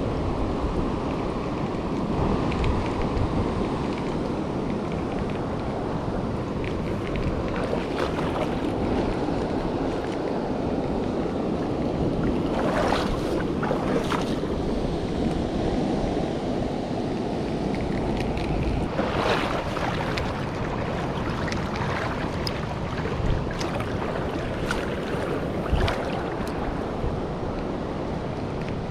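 Steady rush of river water with wind buffeting the microphone. A few short, sharper handling sounds come through around the middle and near the end.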